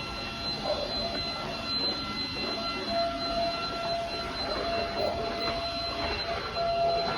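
Gaabor vacuum cleaner running: a steady high motor whine over a rush of air, with a lower tone that comes and goes.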